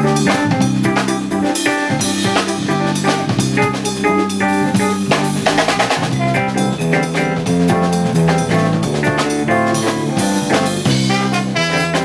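Jazz band music driven by a busy drum kit: rapid snare, rimshot and cymbal strokes over a bass line and other pitched instruments.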